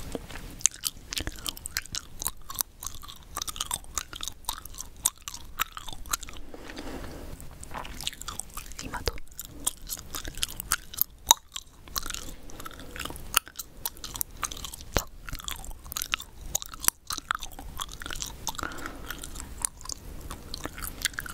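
Gum being chewed close to the microphone: irregular wet clicks and smacks.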